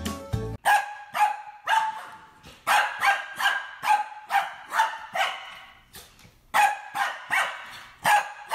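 Small white fluffy dog barking repeatedly: short, sharp, high-pitched barks in quick runs of two or three, about two a second, starting about half a second in.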